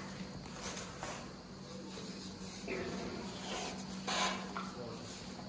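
Baby African elephant's trunk snuffling right at the microphone, with rustling in the straw bedding. The loudest moment is a breathy puff about four seconds in, over a steady low hum.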